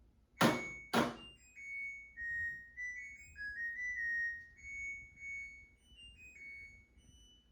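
Two sharp thunks, then an LG washing machine's electronic chime: a simple melody of clean stepped beeps from the control panel's buzzer.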